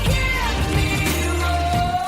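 Pop song playing: a melody line sliding in pitch over sustained bass notes and a drum beat.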